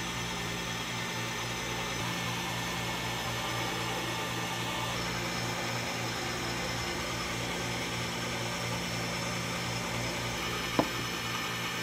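Snowflake bingsu machine running, its motor turning a block of milk ice against the blade with a steady whir and a low pulsing hum as the shavings fall. A single sharp click sounds near the end.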